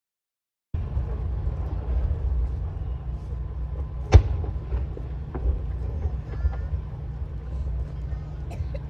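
Fireworks display: a steady low rumble with one sharp firework bang about four seconds in and a few faint pops.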